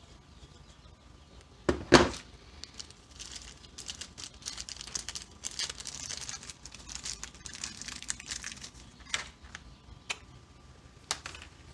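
Tools and small parts of a thread-repair kit being handled: a sharp knock about two seconds in, then several seconds of crinkling rustle, then a few light clicks.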